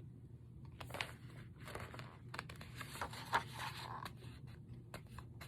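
Pages of a picture book being handled and turned: faint paper rustling with a couple of brief sharper clicks.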